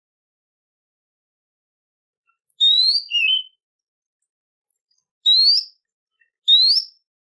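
Songbird calls played as a training recording: a loud rising whistle followed by a lower wavering note about two and a half seconds in, then two more short rising whistles near the end, with dead silence in between.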